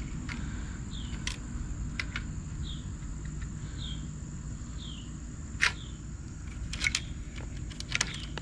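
Scattered sharp metal clicks and clinks of a bicycle chain and screwdriver as the chain is worked around the bound-up front sprocket. Behind them are a steady high insect drone and short chirps repeating about once a second.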